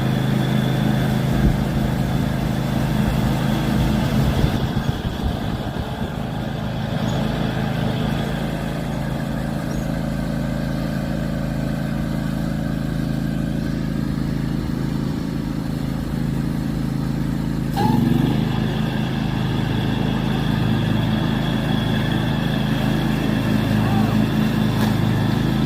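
John Deere X500 riding lawn mower running steadily while mowing, its engine note even throughout. About two-thirds of the way through there is a short knock, and the engine note shifts slightly after it.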